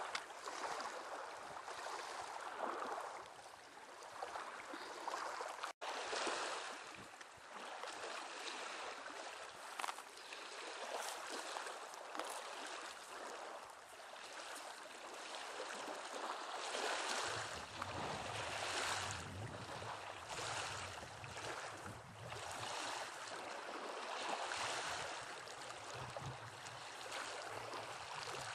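Wind and surf on a beach, a steady rushing noise that swells and fades every few seconds. There is a brief dropout about six seconds in, and a low rumble joins in past the middle.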